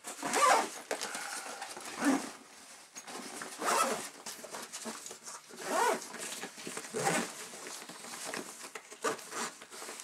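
Zipper and nylon strap webbing of a 5.11 Rush 72 backpack being pulled and handled, in about half a dozen short rasping strokes.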